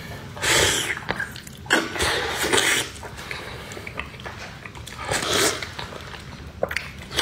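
Close-up eating sounds of biting into and sucking the sauce-coated skin of a braised pork knuckle: a few loud, wet slurps each under a second long, with sticky mouth clicks and chewing between them.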